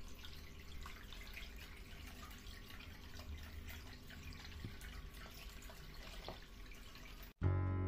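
Small cement tabletop fountain running: water trickling down its tiers and splashing into the basin, a steady trickle with many small drips. Guitar music cuts in abruptly near the end.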